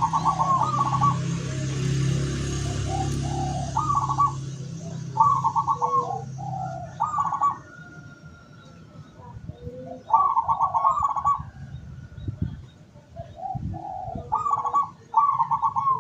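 Zebra doves (local perkutut) cooing: short rolling, trilled coo phrases repeated every second or few seconds.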